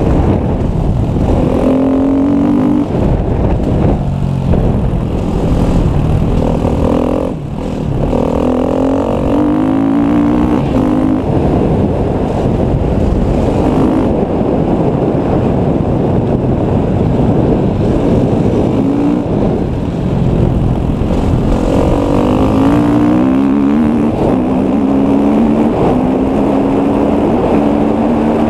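KTM enduro motorcycle engine under way off-road, revving up and dropping back repeatedly as the rider works the throttle and gears, with wind rushing over a helmet-mounted microphone.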